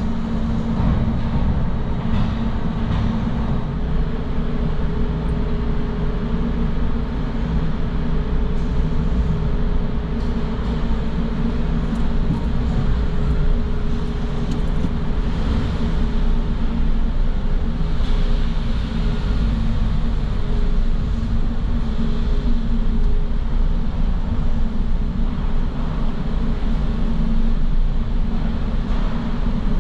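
Car driving, a steady low rumble of engine and road noise with a faint steady hum.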